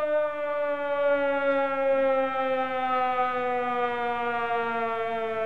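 Air-raid-style siren alarm sounded to celebrate a big card pull: one long steady wail, slowly falling in pitch.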